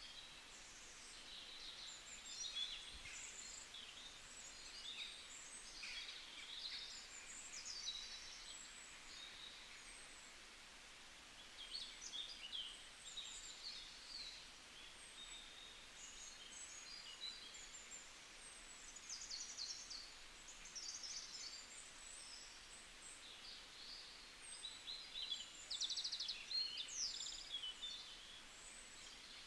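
Birds chirping: many short, high, quick calls and trills throughout, faint over a steady background hiss.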